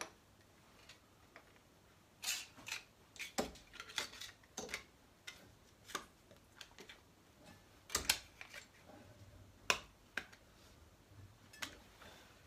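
Irregular light metallic clicks and clinks as a T-handle hex key tightens the backstop clamp on a reed milling machine and a brass strip is handled against its steel fittings. The sharpest clicks come about eight and ten seconds in.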